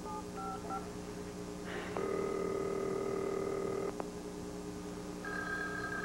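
Telephone call being placed: a couple of short keypad beeps, then a ringback tone sounding steadily for about two seconds, the line ringing at the far end. A second, higher steady electronic tone starts about five seconds in.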